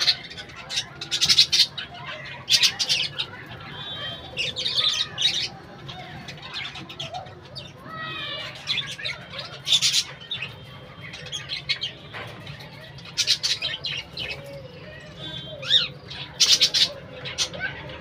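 A flock of budgerigars and cockatiels chattering and chirping, with loud, harsh squawks breaking out every second or few.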